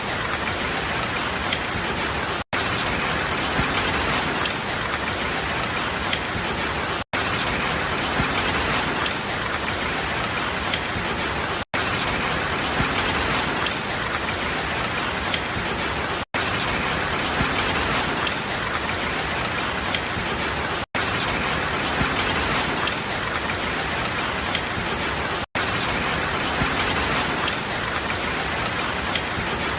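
Steady rain falling: a dense, even hiss with scattered drop patter. It is cut by a split-second dropout about every four and a half seconds.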